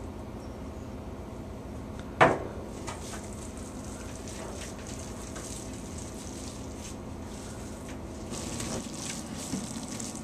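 Hands kneading a stiff, sticky peanut butter fudge dough full of chopped pecans on a plastic cutting board, with faint squishing and crackling that grows busier near the end. A single sharp knock about two seconds in, over a steady low hum.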